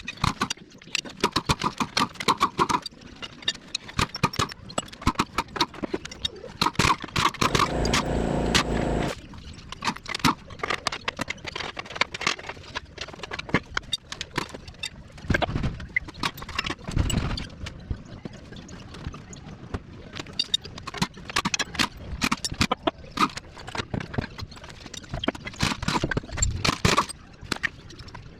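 Metal clanking and clicking of tools and parts being handled while a Honda K20 engine is taken apart, with a power tool running steadily for about two seconds around seven seconds in.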